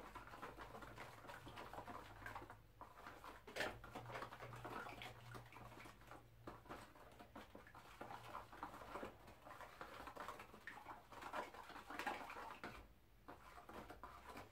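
Wooden stirring stick scraping and ticking in a dish as powdered charcoal pigment is worked into linseed oil to make linseed-oil paint. It is faint and irregular, over a low steady hum.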